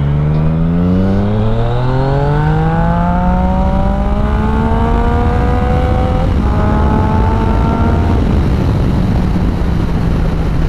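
Yamaha MT-09 Tracer 900's three-cylinder engine through an Akrapovic exhaust, accelerating hard with its pitch climbing steadily for about six seconds. There is a short break, then a further climb, and the engine settles lower near the end. Wind rushes over the microphone throughout.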